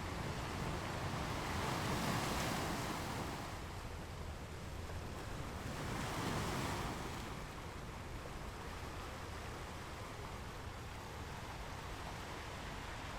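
Ocean surf: waves wash in with a steady hiss, swelling louder twice, about two seconds in and again around six to seven seconds, then settling into a quieter wash.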